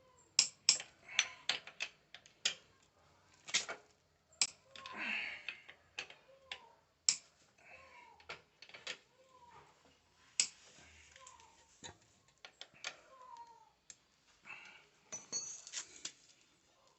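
Hand tools clicking and tapping while the bolts of a motorcycle's clutch cover are undone: irregular sharp metal clicks, with a ratchet-like run of quick clicks near the end. Faint short falling chirps repeat in the background about once a second.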